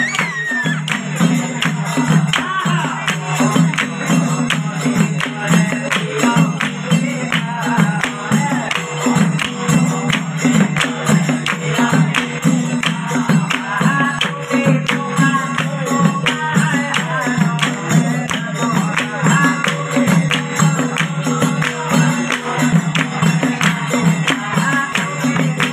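Assamese Holi geet, a folk devotional song, sung by a group over a PA, driven by a fast, steady beat of hand-clapping from the seated singers.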